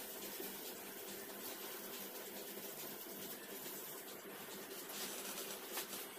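Faint rustling and soft handling noise of plastic-gloved hands rolling kibbeh dough into balls, over a low steady hum.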